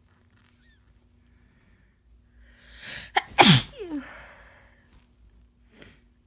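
A woman with a head cold sneezing once: a drawn-in breath that builds for about a second, then a loud, wet sneeze whose cry falls sharply in pitch.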